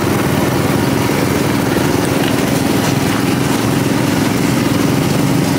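Small engine running steadily at idle, with a fast even pulsing and a steady low hum.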